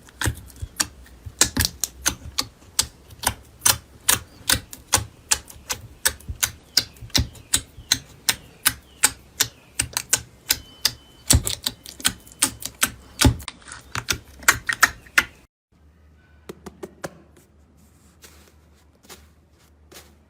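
Slime being squeezed and poked, giving crisp clicking pops at about two to three a second. About three-quarters through it cuts off suddenly to a quieter stretch of softer, sparser pops.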